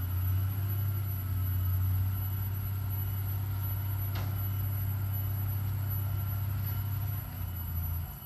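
Diesel engine of heavy earthmoving machinery running with a steady low drone that eases off about seven seconds in and drops again near the end, with a single short click about four seconds in.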